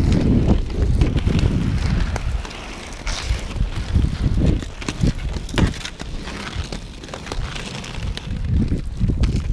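Wind on the microphone and the rumble of inline skate wheels rolling over rough asphalt, with scattered clicks of hockey sticks striking the ball and the ground. The rumble is heaviest at the start and again near the end.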